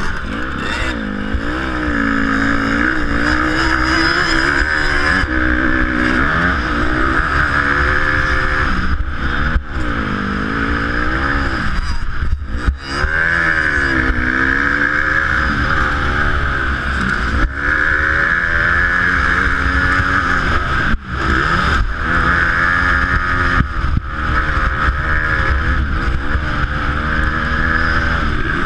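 Honda motocross bike's engine heard from the rider's own helmet camera, revving up and down over and over as the throttle opens and closes through turns and straights, with a few brief dips in level. Steady wind noise on the microphone runs underneath.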